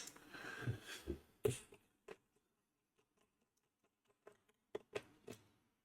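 A few faint, separate clicks and taps from a small screwdriver and screws being handled during disassembly, after a soft rustle at the start.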